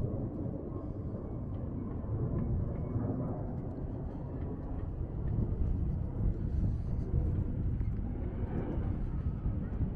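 Outdoor street ambience dominated by a steady low rumble of road traffic, growing a little louder about halfway through.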